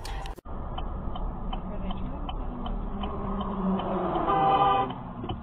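Car turn-signal indicator ticking steadily, about three clicks a second, over low road rumble inside the car. About four and a half seconds in, a short pitched tone rises above it and is the loudest moment.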